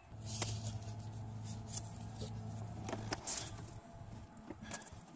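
Faint clicks and scrapes of hand work on a coolant hose and its spring clamp with hose clamp pliers, over a low steady hum that stops about three seconds in.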